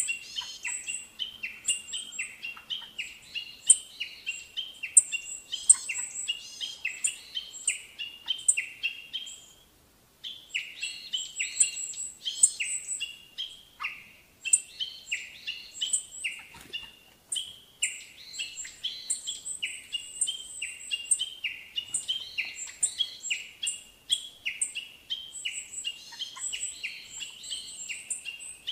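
Birds chirping steadily: a dense run of quick, repeated down-sliding calls with high sharp ticks over them, cutting out briefly twice partway through.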